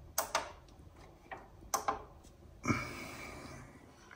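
Sharp clicks from a laptop, mostly in quick pairs: two just after the start and two more a little before the two-second mark. Then comes a louder sudden knock at about the middle, with a hiss trailing off over about a second.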